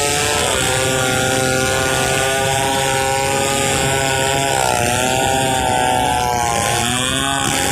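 Stihl 070 two-stroke chainsaw running at high revs while ripping a log lengthwise into planks. Its pitch sags briefly about half a second in, again around the middle, and near the end as the chain loads in the cut, then recovers.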